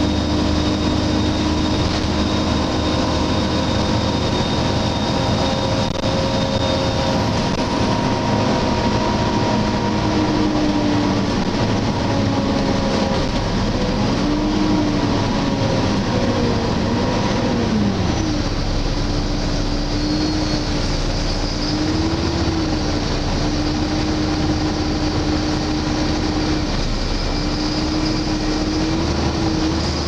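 Volvo B7LA articulated bus heard from inside while under way: its rear-mounted 7-litre six-cylinder diesel and drivetrain run with a steady drone over road rumble. A thin high whine slides down and stops about seven seconds in, and the engine note dips and rises a few times around the middle before settling.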